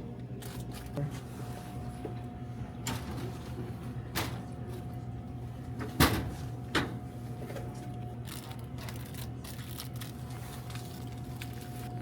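A few sharp knocks and clicks of snack packs and machine parts being handled while a snack vending machine is restocked, the loudest about six seconds in, over a steady low hum.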